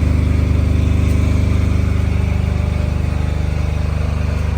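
Portable generator engine running steadily at a constant speed, powering the plumbers' work on site.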